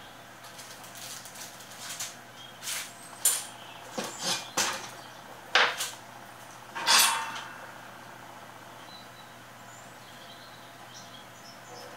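Handling noise at an electronics workbench: a run of small clicks and rustles with a few sharper knocks as parts and tools are picked up and set down. The loudest knock comes near the middle, about seven seconds in.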